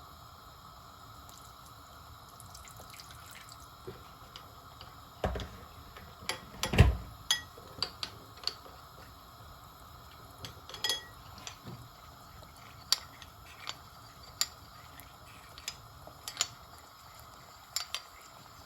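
Spoon clinking and tapping in a bowl while corn flour is stirred into water, in scattered irregular clinks. The two loudest knocks come about five and seven seconds in.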